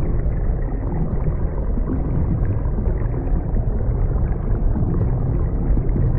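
A deep, steady rumbling drone, heaviest in the bass and without any clear pitch or beat, played as the sound of the Earth's hum.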